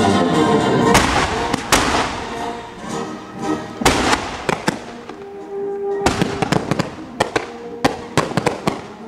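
Aerial fireworks bursting in a string of sharp bangs: single loud bangs about a second in and about four seconds in, then a quick rattle of bangs in the last three seconds. Music plays underneath.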